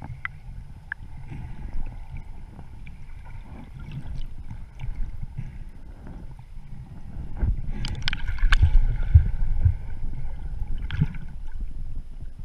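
Water churning and sloshing around a snorkeller's camera held underwater, a steady low rumble with scattered clicks. There is a louder stretch of knocks and churning about two thirds of the way through.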